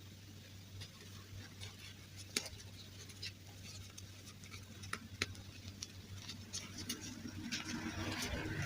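Scattered light clicks and taps of hands handling small plastic doll pieces, with a denser rustling building near the end.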